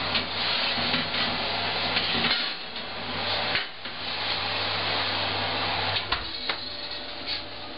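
Metal baking tray clattering against the oven's wire racks as it is pulled from a hot oven, and the oven door knocking shut a little after six seconds, over a steady low hum and hiss.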